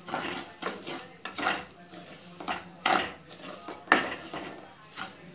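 Spatula scraping and stirring samba rava (cracked wheat) in a non-stick pan as it roasts in a spoonful of oil. The strokes are irregular, about two a second, with a sharp knock against the pan about four seconds in.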